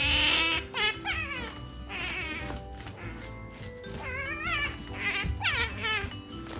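Asian small-clawed otter giving repeated high, wavering squeaks, over background music.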